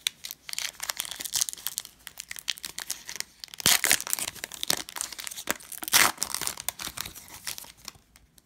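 Foil trading-card pack being torn open and unwrapped by hand: dense crinkling and tearing of the foil wrapper, loudest a little before halfway and again about two-thirds through, stopping shortly before the end.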